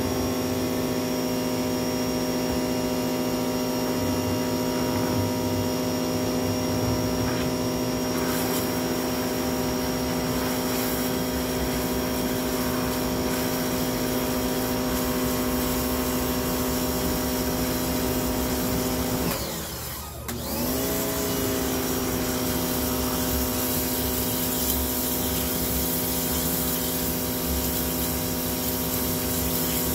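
Sun Joe SPX3000 electric pressure washer running steadily with a high motor whine as it drives water through a sewer jetter hose. About two-thirds of the way through, it briefly winds down and then spins back up to speed.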